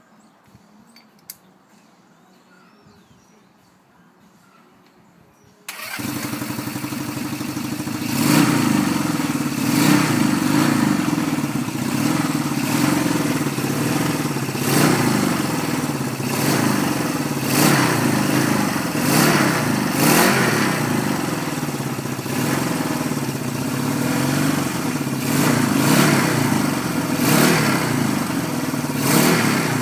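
Freshly rebuilt Honda CB200 four-stroke parallel-twin motorcycle engine starting up about six seconds in, after a quiet stretch. It then runs with the throttle blipped every second or two.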